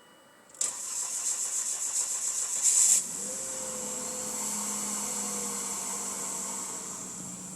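Volvo S40 T5's turbocharged five-cylinder engine being cranked by the starter in cold weather, a pulsing churn for about two and a half seconds, then it fires and settles into a steady idle.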